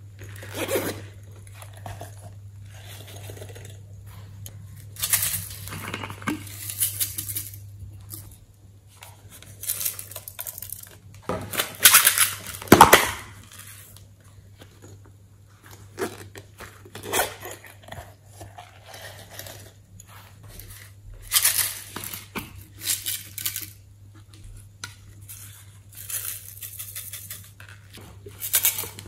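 Plastic containers of sequins and glitter being handled, opened and shaken out over a glass dish of slime: irregular bursts of rattling and clicking, the loudest a little before halfway, over a faint steady low hum.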